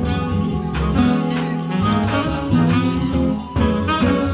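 Live jazz ensemble playing a swinging blues: horns, piano, guitar, upright bass and drums together over a steady beat.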